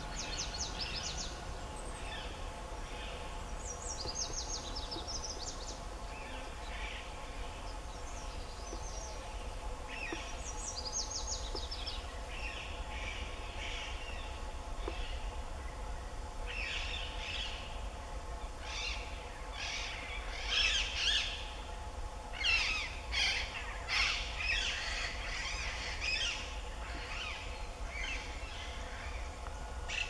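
Grey-backed shrike calling: a run of short, scratchy notes and quick high trills. The calls grow denser and louder in the second half. A faint steady hum runs underneath.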